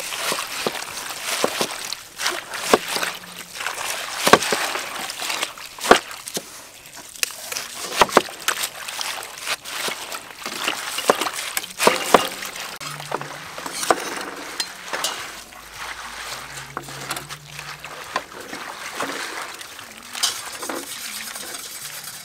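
Hand mixing and squeezing a large steel bowl of finely shredded raw cabbage with salt: rustling with many irregular sharp crackles as the leaves are turned over and pressed.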